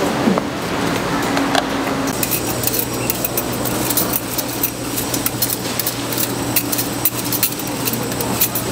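Handheld metal vegetable peelers scraping the skins off sweet potatoes, a quick irregular run of small clicking, scraping strokes over a steady low hum.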